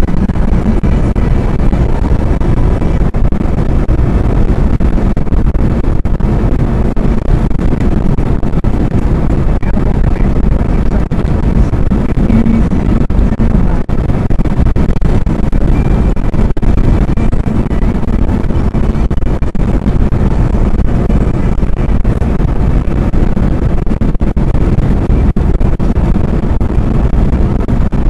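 Loud, steady rumble of a car cruising at highway speed, heard from the dashboard inside the cabin: road and wind noise with no breaks.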